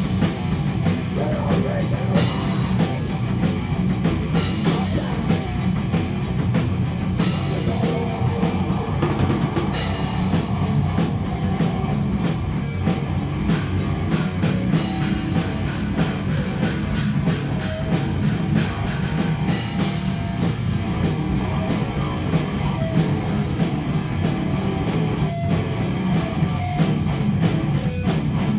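Heavy rock played on an acoustic drum kit, with cymbal crashes every couple of seconds over a steady low backing. Near the end the drum hits come in a fast, even run.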